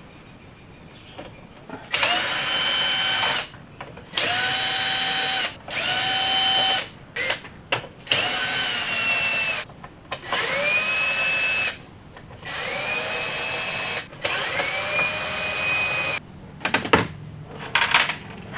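Cordless drill/driver running in about seven short bursts of one to two seconds each, each spinning up with a rising whine and then holding steady, while the car's instrument cluster is taken apart. A few sharp clicks come near the end.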